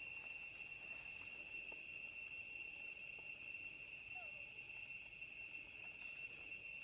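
Faint, steady, high-pitched drone of insects, unchanging throughout, with a few faint brief chirps.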